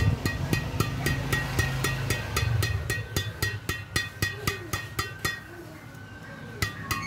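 String bed of a freshly strung Li-Ning Tornado 800 badminton racket (Li-Ning No.1 string at 27 lbs) being tapped to test its sound, about four taps a second, each a short ringing ping. The tapping stops for about a second after five seconds, then starts again near the end.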